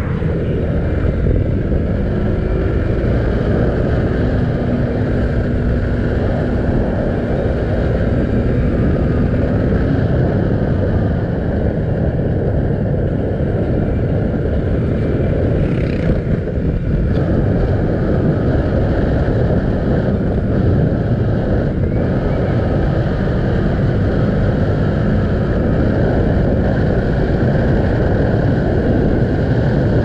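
Bajaj Pulsar 200NS single-cylinder engine running as the motorcycle is ridden along the road, with wind rushing over the microphone. There is a brief knock about halfway through.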